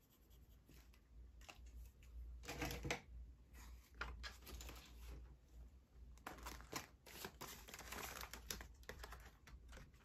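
Faint paper-and-plastic handling: ring-binder pages and cash-envelope pockets being flipped and rustled, with scattered small clicks and taps in short clusters.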